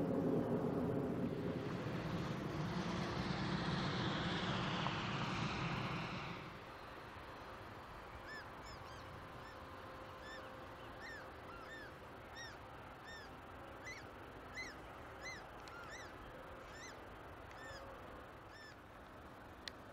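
An engine runs through the first six seconds, with a falling whine, then fades away. After that, geese give short honking calls, one or two a second, for about ten seconds, and a single sharp click comes near the end.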